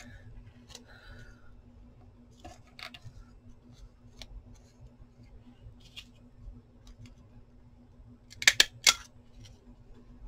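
Paper scraps rustling as they are handled, then a handheld stapler clacking shut through the layered paper, a sharp double clack about eight and a half seconds in.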